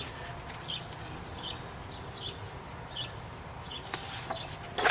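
A small bird chirping repeatedly, short falling high notes about every three-quarters of a second. Near the end comes a louder crackle of paper pages being handled and turned.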